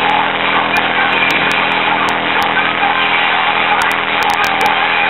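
A small engine running at a steady speed, giving an even, unbroken hum.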